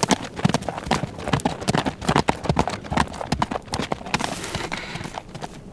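Horse hoofbeats at a quick pace, a fast run of clip-clop strikes that grows fainter near the end as the horse moves away.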